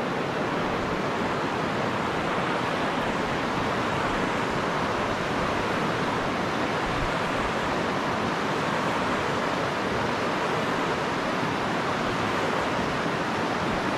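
Small mountain stream rushing steadily over a rocky riffle into a pool.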